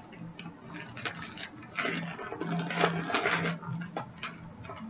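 Rustling and crinkling of package wrapping being handled and opened, in short irregular scratchy bursts.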